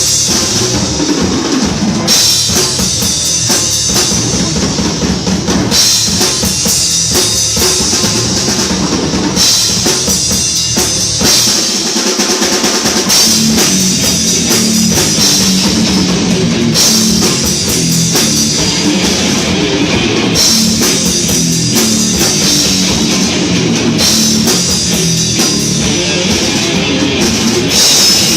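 A heavy metal band playing live, led by a drum kit with pounding bass drum and crashing cymbals over distorted electric guitar and bass. It is loud and continuous, with the cymbal-heavy stretches coming and going every couple of seconds.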